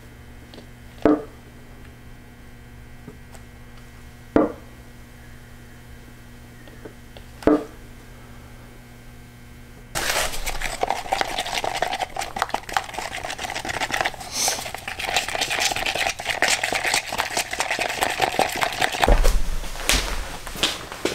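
Three short strokes of the hand pumps on West System epoxy resin and hardener cans, about three seconds apart, dispensing into a plastic cup. From about ten seconds in comes a steady scraping with many small clicks: a wooden craft stick stirring epoxy in a plastic cup. There is a low thump near the end.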